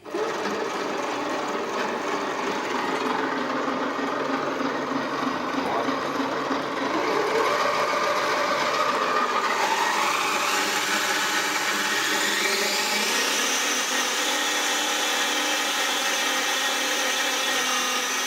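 775 Pro motors and their gearbox on a robot drivetrain running under power with a steady gear whine. About ten seconds in, the whine rises in pitch as the motors speed up, then holds high.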